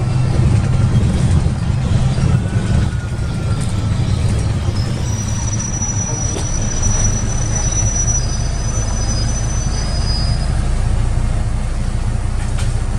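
Karosa B961 articulated city bus heard from inside while it drives: a steady low drone of the engine and running gear. A thin high-pitched squeal sounds for several seconds in the middle.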